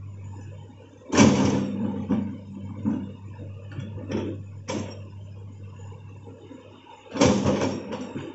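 Hitachi hydraulic excavator's diesel engine running with a steady low drone, broken by loud scraping bursts as the bucket digs into and scoops the soil, the loudest about a second in and near the end.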